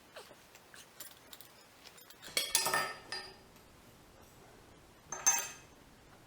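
Metal objects clattering and clinking as they are handled on a workshop bench: a longer rattle about two and a half seconds in and a shorter one about five seconds in, with a few light ticks before them.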